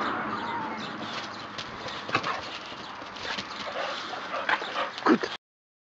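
Boxer dogs' paws scuffing and scratching on a concrete-block wall and crunching on gravel, in scattered short strokes, with a louder short sound near the end before the audio cuts off suddenly.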